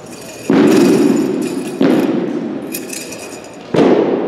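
Three loud, sudden thuds from a wushu spear routine hitting the competition floor, each dying away over a second or so.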